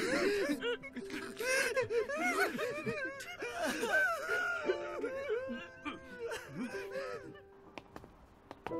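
Several young men's voices crying together, with sobs and broken wordless cries, over soft held background music; the voices die away about seven and a half seconds in.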